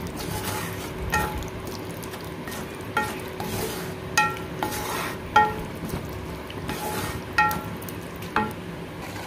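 Wooden spatula stirring thick prawn masala in a black kadai, knocking against the pan about once a second with short ringing clinks. Under the knocks is a steady sizzle as the watered-down masala heats toward the boil.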